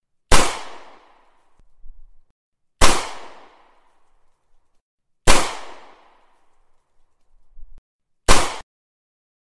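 Recorded gunshot sound effect of a .40 Smith & Wesson pistol: four single shots about two and a half seconds apart, each ringing out for about a second, the last cut off short.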